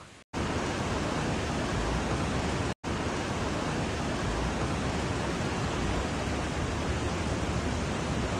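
Steady rushing noise of a torrential rainstorm and floodwater, with no rhythm or pitch to it. It cuts out for an instant twice, near the start and about three seconds in.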